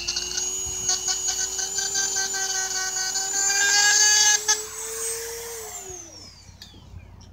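Small handheld power tool, used for cleaning a fossil, running with a steady whine while its tip chatters against the stone in rapid clicks. About five and a half seconds in it is switched off and the whine falls in pitch and dies away.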